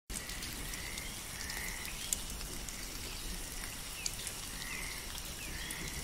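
Nature ambience: a steady patter of falling water with scattered small drip-like clicks, and short animal chirps recurring about once a second.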